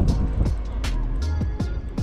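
Background music with a steady beat over a deep bass line.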